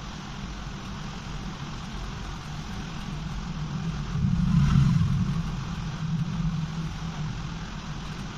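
Steady low rumble that swells louder for about a second around four to five seconds in.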